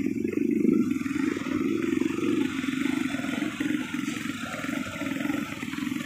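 Small motorcycle engine running steadily close by, its fast firing pulses giving a low, even buzz with slight rises and dips in level.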